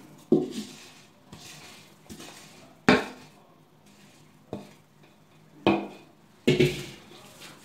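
A wooden spoon scraping out a metal pot of sugar-syrup-coated mixed nuts and knocking against it as the nuts slide out onto a metal tray. There are about five sharp knocks, irregularly spaced, with quieter scraping between them.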